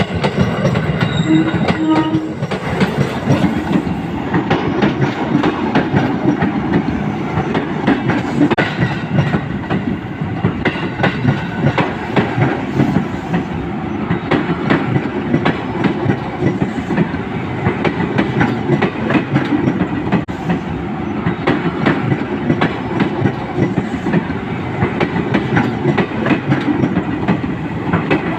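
A train running along the rails, with dense rhythmic clacking of wheels over the track and a brief tone about a second in.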